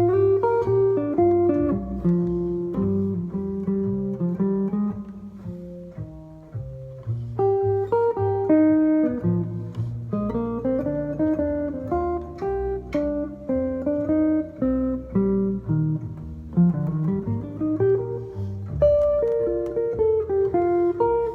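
Solo guitar playing a chord-melody arrangement, with the melody on top and chords and bass notes plucked beneath it.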